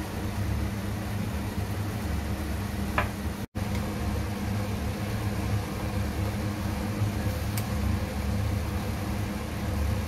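Steady low mechanical hum, like a fan or small motor running, with a single sharp knock about three seconds in.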